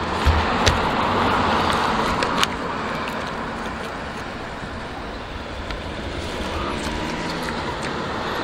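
Road traffic going by: a car passing that fades over the first few seconds, then traffic building again towards the end, with a few sharp clicks near the start.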